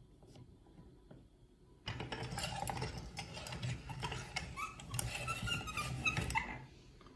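Hand-cranked cast-iron meat grinder crushing a chocolate umbrella, a chocolate cone on a plastic stick, in its auger: dense cracking and crunching that starts about two seconds in and stops suddenly near the end.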